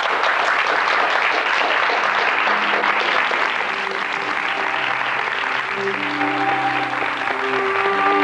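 Audience applauding steadily. About halfway through, music fades in under the clapping, and its notes grow clearer near the end.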